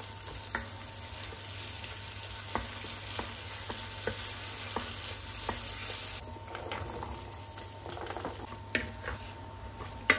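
Food sizzling in a pan while it is stirred, with light clinks of a utensil against the pan every second or so. The sizzle thins out about six seconds in, and the clinks go on.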